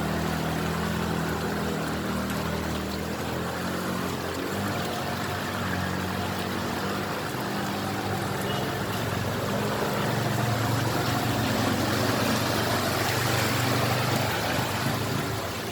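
An engine running steadily over rushing, splashing floodwater, a little louder for a few seconds past the middle.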